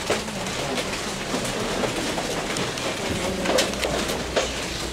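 A crowd of people getting to their feet and settling: a continuous shuffling and rustling with scattered knocks.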